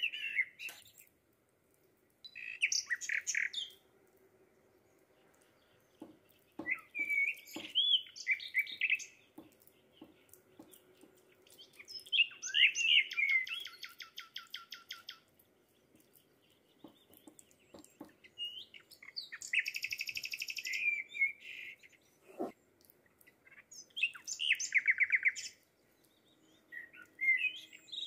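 A small songbird singing short high phrases every few seconds, several of them ending in fast rattling trills. A few soft knocks fall between the phrases.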